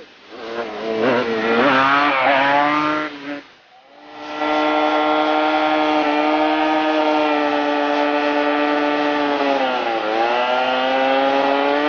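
Kawasaki KMX 125 two-stroke single revving up and down as it rides, then, after a break, held at high revs in a burnout with the rear tyre spinning on asphalt. The revs sag briefly near the end and climb back.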